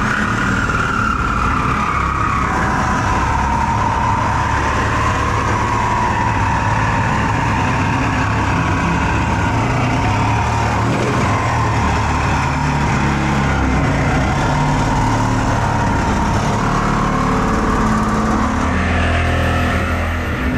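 A power tool cutting into a metal oil tank: a loud, steady motor whine over harsh cutting noise. The pitch settles slightly lower in the first two seconds and then holds.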